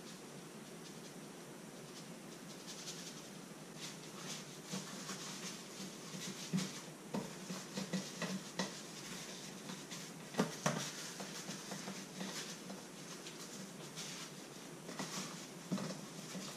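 Dry brine mixture pattering softly as it is poured from a plastic jug over salmon fillets in a glass dish, then cling film crinkling and crackling in irregular bursts as it is wrapped over the dish and pressed down, with a few sharper clicks about halfway through.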